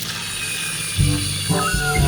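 Background music with a bass beat and pitched melody notes, with a short chirping whistle near the end.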